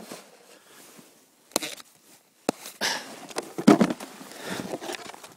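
Irregular crunches and scrapes of packed snow under a snowboarder's boots and board, with handling noise of the board and binding, loudest a little before 4 seconds in.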